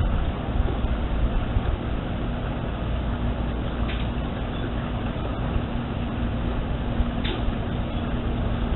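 Steady background rumble with a constant low hum, broken by two brief faint ticks about four and seven seconds in.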